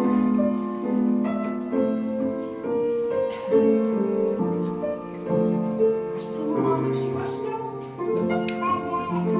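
Piano music playing a melody with chords.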